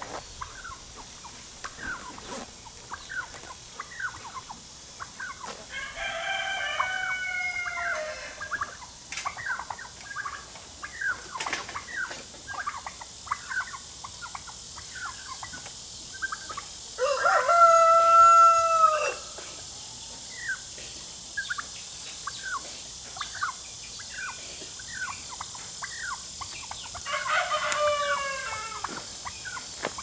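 A rooster crowing three times, each crow about two seconds long, the middle one the loudest, with short clucks and chirps in between.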